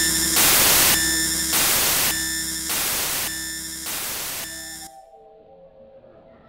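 Static-like hiss with steady tones beneath, pulsing about once a second and fading, then cutting off sharply about five seconds in, leaving only faint low tones.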